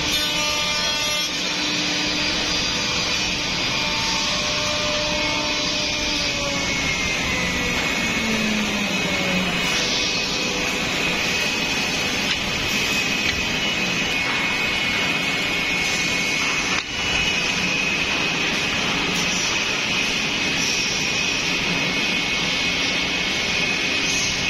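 Ten-head CNC mortising machine running, its router spindles cutting mortises in wooden parts: a steady mix of cutting noise and spindle whine. A tone falls in pitch about seven seconds in.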